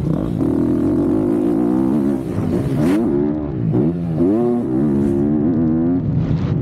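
MX2 motocross bike's engine revving hard while racing, heard close up. The pitch holds high, dips briefly about two seconds in, then falls and climbs again several times as the throttle is closed and reopened, before holding high again.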